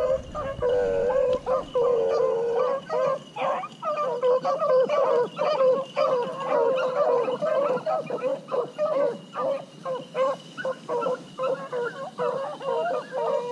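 Pack of beagle hounds baying, many overlapping calls one after another, as they run a rabbit's track.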